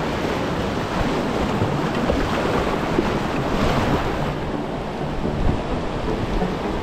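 Steady rushing noise of whitewater river rapids around a kayak, with wind buffeting the microphone.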